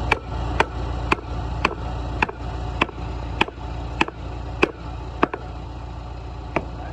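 Repeated hammer-like strikes, each with a short ringing tone, about two a second with a longer pause before the last one. An engine idles steadily underneath.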